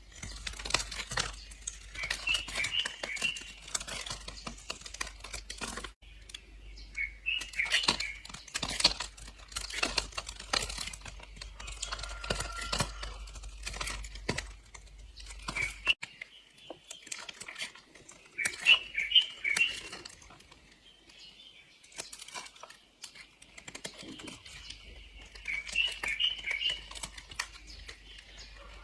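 Blade slicing through bars of soap: a run of crisp, crunchy cutting crackles and clicks in irregular clusters.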